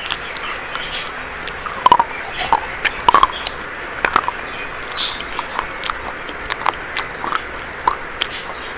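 Dry chalk being bitten and chewed: sharp, irregular crunches several times a second over a steady hiss, the loudest about two seconds in.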